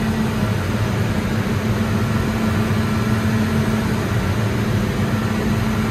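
Develon DX380 excavator's common-rail diesel engine running steadily at raised revs with its hydraulics loaded.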